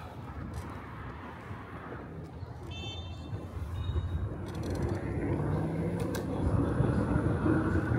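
Street traffic heard from a moving e-bike: a steady low rumble, with a motor vehicle getting louder through the second half. A brief high tone sounds about three seconds in.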